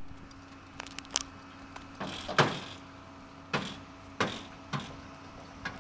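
A horse's hooves thumping and clunking on the metal bed of a pickup truck as it jumps in and shifts its feet: about six separate heavy thumps, the loudest about two and a half seconds in.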